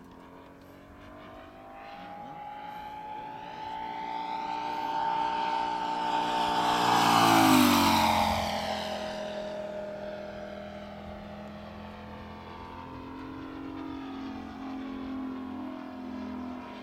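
Moki 180 four-stroke radial engine of a quarter-scale RC Yak-11 model plane making a low fly-by: the engine note grows louder, peaks about halfway through and drops in pitch as the plane passes, then fades to a steady, quieter drone that swells slightly again near the end.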